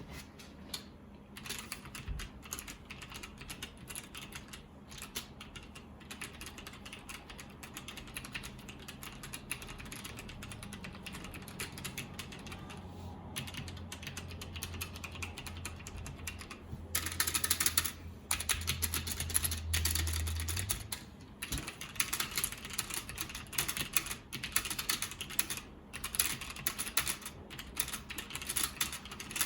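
Typing on a wireless mechanical keyboard with brown switches: a continuous, irregular run of keystroke clacks, with a faster, louder flurry about two-thirds of the way through. Some keys rattle, which the owner puts down to the stabilizer supports needing lube.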